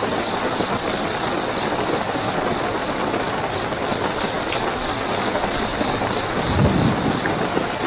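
Steady heavy rainfall with a continuous high cricket trill over it. A brief low rumble swells up about six and a half seconds in.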